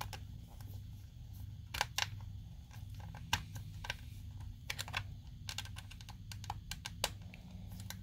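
Irregular small plastic clicks and taps as fingers connect the battery plug and handle the plastic hull of a toy RC tank.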